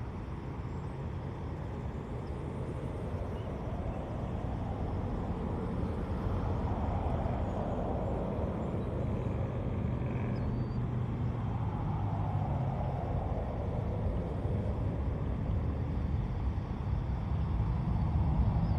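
Steady low rumble of road traffic, swelling slightly louder through the middle as vehicles pass.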